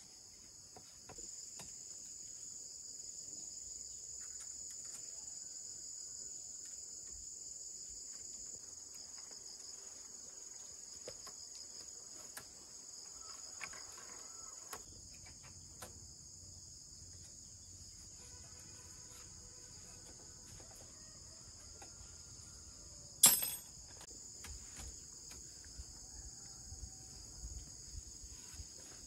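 Insects chirring steadily in a high continuous drone, with faint scattered taps and one sharp knock about three-quarters of the way through.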